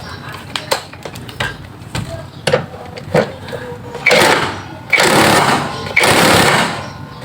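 A wrench tightening the 15 mm upper mounting bolts of a Chevrolet Spin's rear shock absorber: scattered clicks and knocks, then about four seconds in, three loud bursts of rapid rattling, each about a second long.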